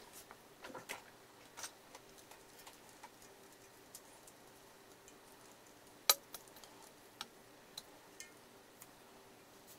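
Scattered light clicks and taps of broken porcelain pieces touching as they are dry-fitted together by hand, the sharpest click about six seconds in.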